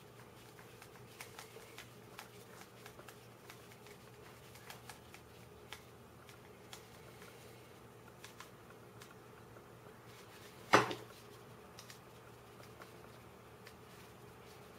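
Hand screwdriver driving a small screw into a 3D-printed plastic puzzle piece: faint, irregular little clicks and scrapes as the screw is turned, with one sharp, much louder click about three-quarters of the way through.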